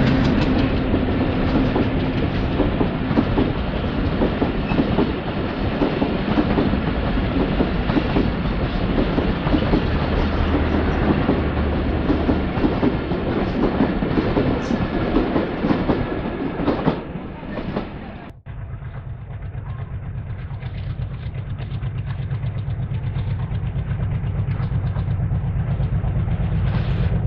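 Broad-gauge passenger coaches passing close at speed, wheels clattering on the rails, fading away as the end of the train goes by. Then, after a cut, the steady low drone of an approaching diesel locomotive, growing louder as it nears.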